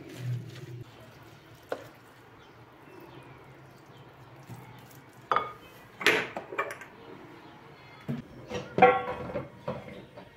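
Kitchen clatter: a wooden spoon stirring a thick grated-zucchini batter in a ceramic mixing bowl, with sharp knocks and clanks of cookware in two clusters about five to seven seconds in and again near nine seconds, the later ones loudest.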